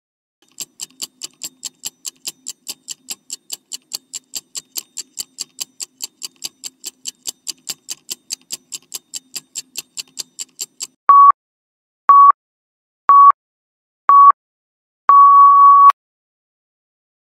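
Quiz countdown timer sound effect: a clock ticking at about four ticks a second, then four short beeps a second apart and one longer final beep as the timer runs out.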